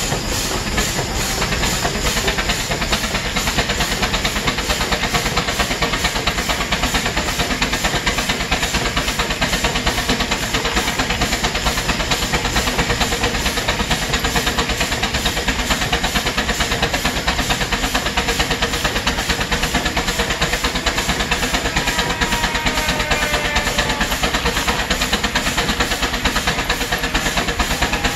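Baker steam traction engine running steadily: a rapid, even beat of the engine over a constant hiss of steam.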